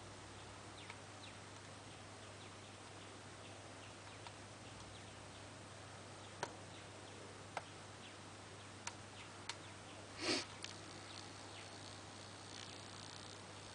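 A few faint, scattered clicks of a hook pick and tension wrench working the pin stack of a rim cylinder lock, over a low steady hum. About ten seconds in there is one brief, louder hiss.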